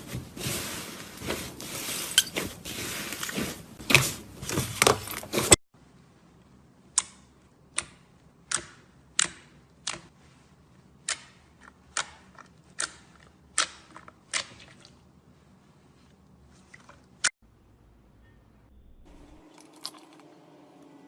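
Slime being squeezed and poked by hand, with dense wet crackling and popping for several seconds. After a sudden cut come a series of sharp single pops, about one every two-thirds of a second, then one more pop later.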